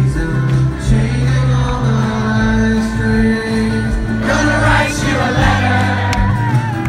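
Live rock band playing: strummed acoustic and electric guitars over a steady bass, with a male voice singing, strongest from about four seconds in.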